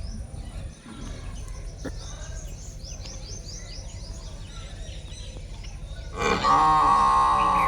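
Small birds chirping over a steady low rumble. About six seconds in, a loud, drawn-out animal call begins; it rises at the start, then holds one steady pitch.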